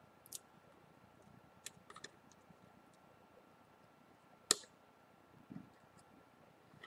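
Scattered small clicks and taps of phone parts and a repair tool being handled. One sharper click comes about four and a half seconds in, and a soft thump about a second later.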